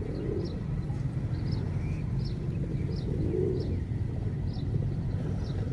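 Pigeons cooing, two soft low coos, one near the start and one just past the middle, while another bird repeats short high chirps about once a second over a steady low rumble.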